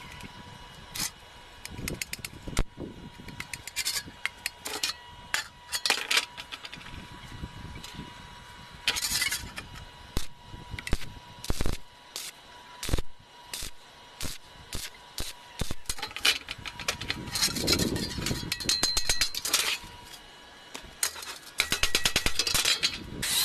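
Stick-welding arc on a steel shovel blade, crackling in short stop-start bursts as the rod fills a hole in the blade, with brief pauses between runs.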